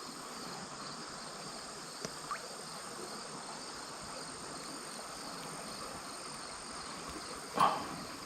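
Steady high-pitched trilling of crickets or other insects over an even background hiss, with two faint clicks about two seconds in and a brief louder noise near the end.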